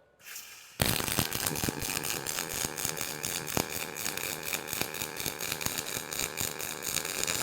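Welding robot's arc crackling steadily with dense irregular spitting, starting abruptly about a second in and cutting off near the end as the taught program runs.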